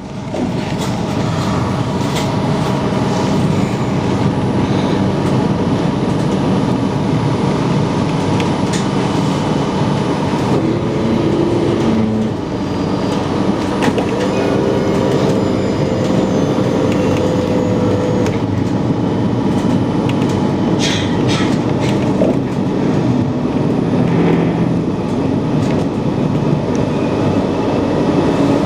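Tram in motion: a steady rumble and hiss of wheels and running gear, with a brief whine in the middle of the ride.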